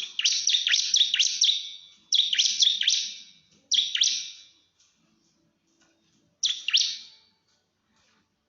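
Bar-winged prinia (ciblek) singing loud bursts of rapid, sharp, high descending notes: a challenge song to a rival. The first burst lasts about two seconds, followed by three shorter bursts with brief pauses between them.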